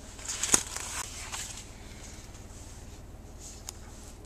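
Rustling handling noise lasting about a second, with one sharp click about half a second in, then a low steady hum with a few faint ticks.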